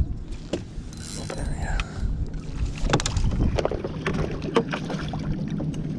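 Wind and water noise aboard a bass boat, with scattered knocks and clicks from handling rod and gear and a steady low hum that sets in about two seconds in; a hooked bass splashes at the surface beside the boat.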